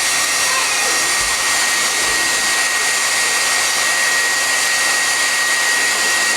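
Handheld hair dryer running steadily, a loud rush of air with a steady high-pitched motor whine.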